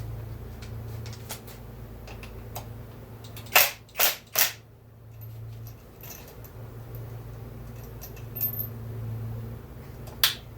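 Hard tool and metal part knocks on a workbench during a chainsaw teardown: three sharp clacks in quick succession a few seconds in, scattered lighter ticks, and another sharp clack near the end, over a steady low hum.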